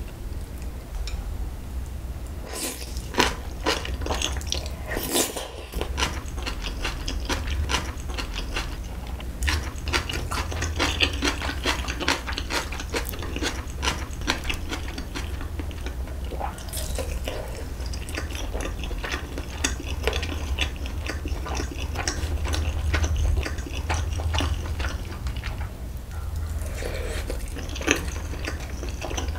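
Close-miked chewing and biting of spicy braised beef short ribs (galbi-jjim), with many small wet clicks and crackles, and the odd clink of chopsticks or the rib bone against the metal pan.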